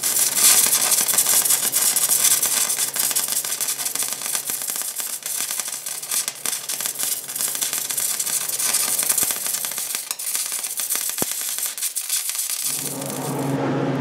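MIG welding arc from a Power MIG 200 welder running 0.045 wire under argon–CO2 shielding gas, crackling steadily as it lays a bead into a ground V-groove over a cracked weld in a hay baler's steel frame. The arc stops about twelve and a half seconds in, leaving a steady hum.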